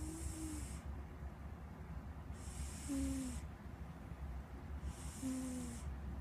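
Domestic cat snoring in its sleep: each breath is a hiss with a short, falling snore note, repeating about every two and a half seconds, three times.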